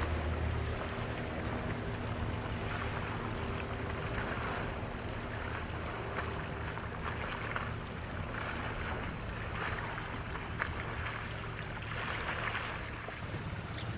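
Small waves washing repeatedly against a rocky shore, over a steady low engine drone from a boat on the water that is loudest for the first second and then drops back. A single sharp tick about ten and a half seconds in.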